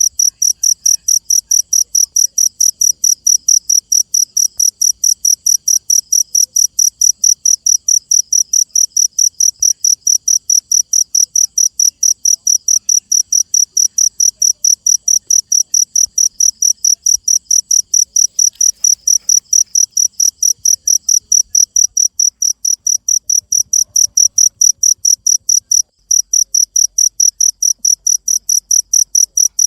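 Cricket chirping, a loud high-pitched trill pulsed steadily about three times a second, with one short break near the end.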